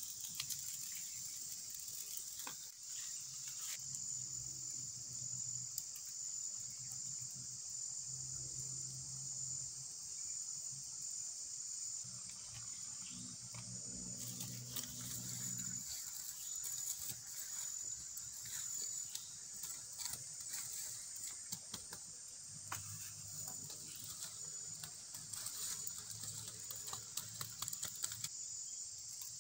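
Steady high-pitched drone of crickets or similar forest insects, with a thin steady whine on top, and scattered light clicks and rustles throughout.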